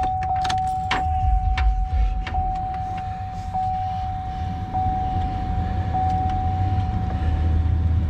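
A truck's dashboard warning chime sounds as one steady tone that pulses about once a second. Over it come sharp clicks and jangles of the ignition keys and a low hum, as the ignition is switched on before the engine is started.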